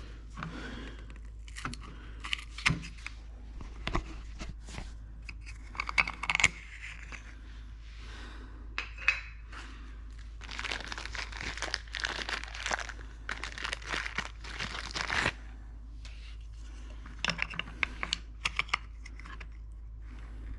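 Hand work on a Vespa scooter's rear brake light: scattered clicks and knocks of the lens and small fittings being handled. Several seconds of crinkling, tearing noise come in the middle, all over a steady low hum.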